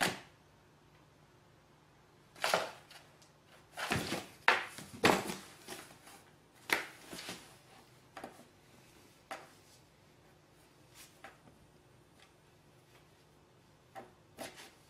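A cat shifting and pawing about inside a cardboard box: irregular scrapes and knocks on the cardboard, in a busy cluster from about two to eight seconds in, then only a few scattered ones.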